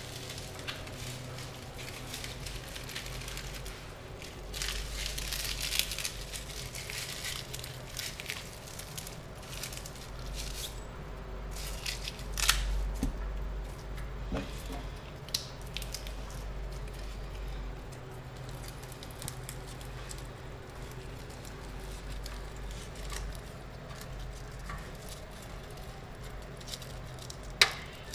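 Hands rustling and crinkling a bunch of wet, long green leaves as they are shaken, folded and knotted into a bundle, with scattered small clicks and one sharp click near the end.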